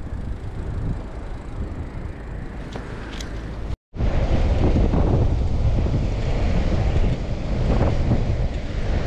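Wind rushing over the microphone of a camera on a moving bicycle, with the steady rumble of riding on the road. After a brief cut about four seconds in, the wind gets much louder and comes in gusts.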